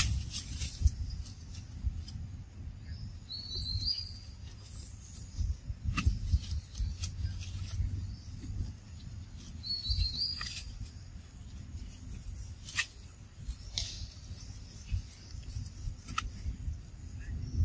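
Outdoor ambience with a low rumble and scattered ticks and rustles. Twice, about seven seconds apart, there is a short, high, rising chirp from an animal.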